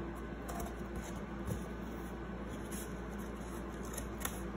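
Faint scratching and a couple of light taps from a cardboard loom being handled and flipped over as yarn is strung through its notches.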